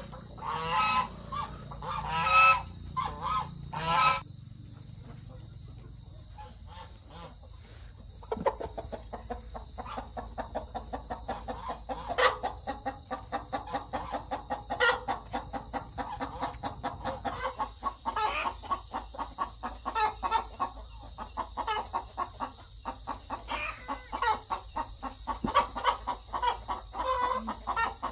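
Chickens calling: a few loud calls in the first four seconds, then from about eight seconds a flock clucking in quick, continuous chatter. A steady high insect drone runs underneath.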